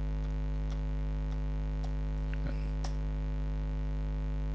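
Steady mains hum with a buzzy stack of overtones, with a few faint keyboard clicks on top as a command is typed, two of them a little sharper past the middle.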